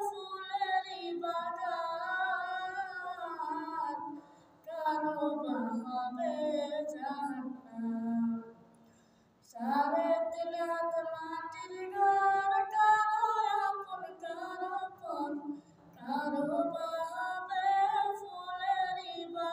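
A boy singing an unaccompanied Bengali Islamic devotional song in long melodic phrases, with short breaths between them and a longer pause about nine seconds in.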